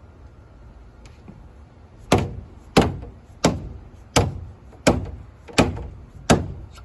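A rubber mallet strikes the Bear Claw installation tool seven times, about one blow every 0.7 seconds, driving hidden deck clips onto the joists. Each blow is a sharp knock with a short ring.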